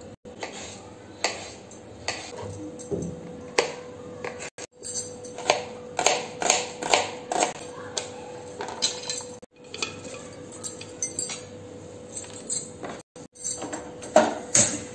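Kitchen cooking clatter: a steel ladle clinking in a steel pot, and a series of sharp knocks and clinks from a wooden cutting board and steel dishes. A faint steady tone runs underneath.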